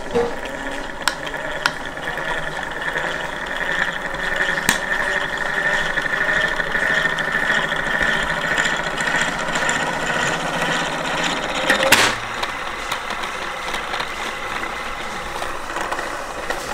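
Homemade mousetrap car's gear train whirring steadily as the sprung trap's lever arm slowly unwinds the string from the drive axle and spins the CD wheels. A few light clicks, and a sharper knock about twelve seconds in.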